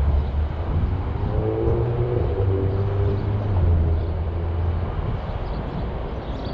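Low, steady engine rumble, with a droning engine tone that swells from about a second in and fades after about three and a half seconds.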